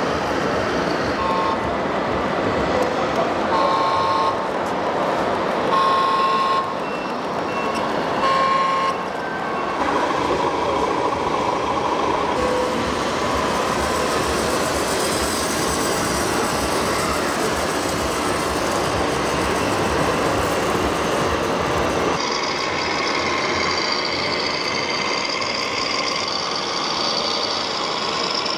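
Radio-controlled model trucks and a tractor running with their electronic sound modules amid exhibition-hall chatter. Short warning beeps, like reversing beeps, repeat about every two and a half seconds for the first nine seconds, followed by steady running noise.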